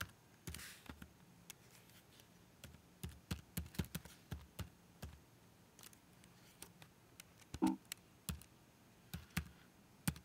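Computer keyboard being typed on, with irregular key clicks as a shell command is entered. A brief voiced hum from a person comes about three-quarters of the way through.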